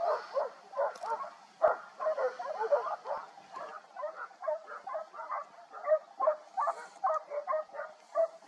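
Hunting dogs barking and yelping in a quick run of short calls, several a second and overlapping, as hounds give tongue on the trail of wild boar.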